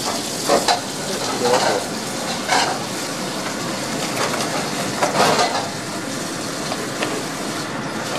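Soba noodles being stirred loose with long wooden chopsticks in a wire strainer basket sunk in a boiling-water noodle cooker: a steady bubbling hiss of the boiling water, with intermittent clinks and knocks of chopsticks and strainers against the metal.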